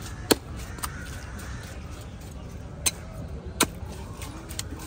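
Heavy cleaver chopping through a wallago catfish (boal) into a wooden chopping block: sharp chops about a third of a second in and twice around three seconds in, with lighter knocks between, over a steady low background hum.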